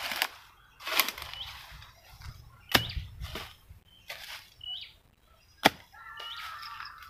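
Hoe blade chopping into weedy soil, about six sharp strikes at irregular spacing. A bird repeats a short rising chirp three times between them.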